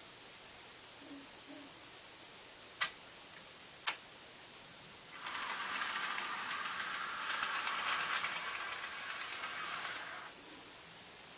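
Two sharp clicks about a second apart from the layout's electrical switching gear, then an N gauge model train running on the track for about five seconds: a small motor's whir with a fine, rapid rattle of wheels on rail, which then stops.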